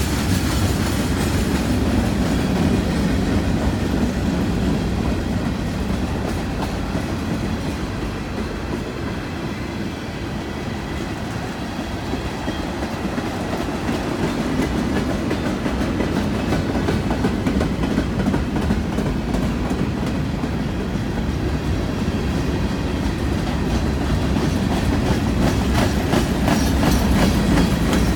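Cars of a long mixed freight train rolling past: a steady low rumble with wheel clicks, easing slightly about ten seconds in and growing louder near the end.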